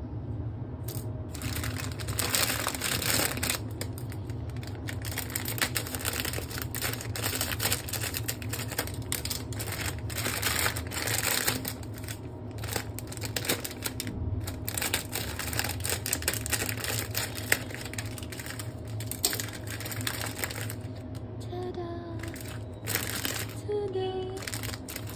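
Crinkling plastic of instant-noodle packets being handled and opened, with the noodle block pulled out of its wrapper; the rustling comes in uneven bursts and thins out near the end, where a few short pitched sounds are heard.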